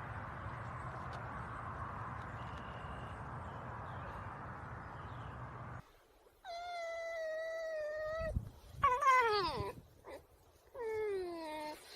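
A steady hiss for about six seconds, then a cat's drawn-out meows: one long, level call, followed by two calls that fall in pitch.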